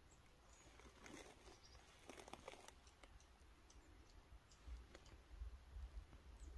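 Near silence with faint scattered clicks and crackling, densest a second or two in, and a low rumble coming in near the end.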